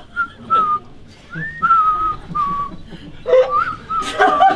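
A man whistling a tune through pursed lips: a run of separate notes around one pitch, some held and a few sliding upward. Crowd noise comes in near the end.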